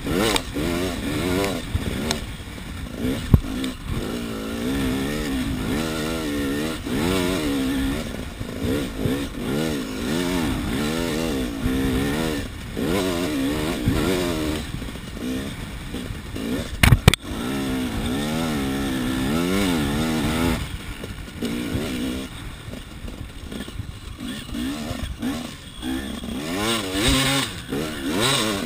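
KTM 300 EXC's single-cylinder two-stroke engine revving up and down again and again as the dirt bike is ridden hard. There is a sharp knock about three seconds in and a louder double knock about seventeen seconds in.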